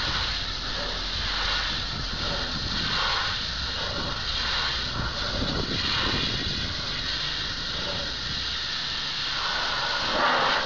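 Pressure washer spraying a jet of water against metal poster boards: a steady hiss over a low motor hum.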